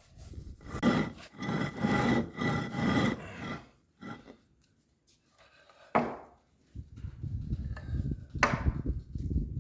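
Wood being worked by hand: a run of rasping, rubbing strokes, then two sharp knocks a couple of seconds apart.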